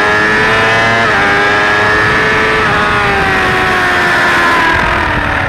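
Suzuki GSX-R600 K4's inline-four engine at high revs under throttle, with a rush of wind: the pitch climbs, dips briefly twice as it shifts up, then eases and falls steeply near the end as the throttle is closed.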